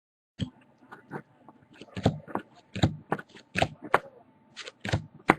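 Trading cards and their packaging being handled: a run of short, crisp clicks and snaps at an uneven pace, starting about half a second in.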